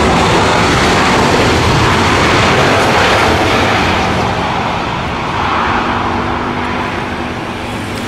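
Citilink Airbus A320-214's twin CFM56 jet engines during the landing rollout, a loud, steady roar. The roar slowly fades over the second half as the airliner slows and moves away down the runway.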